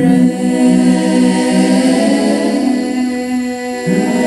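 Mixed a cappella vocal group singing held chords, several voices in harmony with no instruments; the chord changes about four seconds in.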